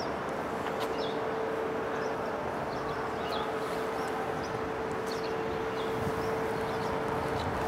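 Microwave oven running with a steady hum over a noisy hiss, with faint short ticks now and then.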